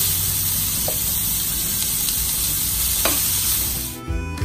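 Marinated beef tenderloin strips and garlic sizzling loudly in hot olive oil in a stainless steel Saladmaster pan, freshly added and stirred with a metal utensil. The sizzle cuts off suddenly near the end and music starts.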